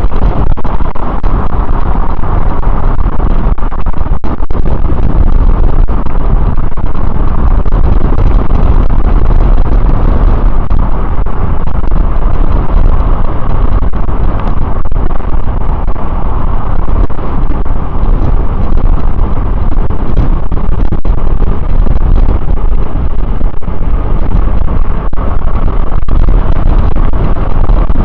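Heavy, steady wind rumble on the microphone of a camera riding on a fast-moving e-bike, with road traffic passing alongside.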